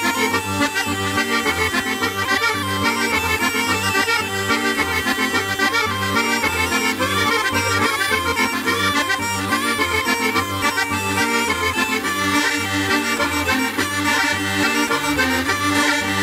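Traditional folk music led by an accordion, a fast run of notes over a steady low pulse.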